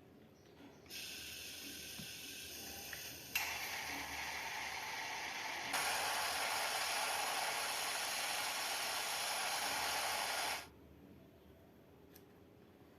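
Steady hissing spray from a work tool, starting about a second in, getting louder in two sudden steps and cutting off sharply near the end.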